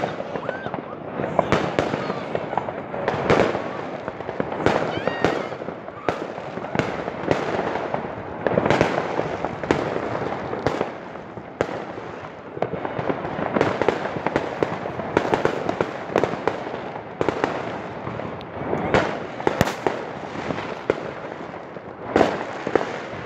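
New Year's fireworks and firecrackers going off all around: a continuous crackle with many sharp bangs at irregular intervals.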